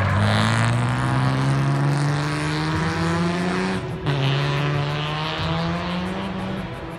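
A drift car's engine revving hard, its pitch rising steadily for about four seconds. It breaks off suddenly and comes back lower, then holds steady and fades near the end.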